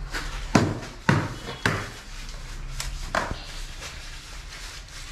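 Sharp knocks and clinks of metal diesel-pump parts and tools being handled: three strong knocks about half a second apart, then two fainter ones about three seconds in, over a steady low hum.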